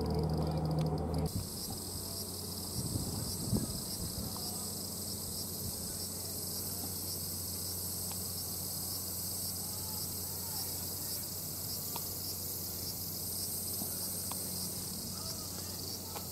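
Steady, dense, high-pitched chorus of summer cicadas. A low hum cuts off about a second in.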